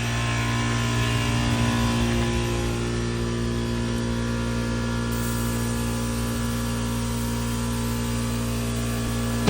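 A steady mechanical hum with several fixed pitches over an even rushing noise, like a running motor.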